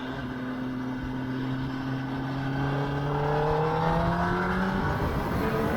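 2021 Kawasaki ZX-10R's inline-four engine pulling hard through a gear, its pitch rising steadily, then dropping with an upshift near the end, over a low rush of wind.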